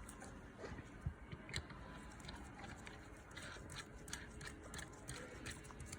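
Faint, irregular clicks and taps of small pump parts being handled as fittings are attached to a piston pump head.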